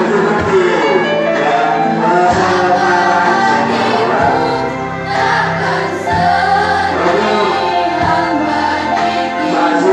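A school choir of girls' voices singing together in held, shifting notes.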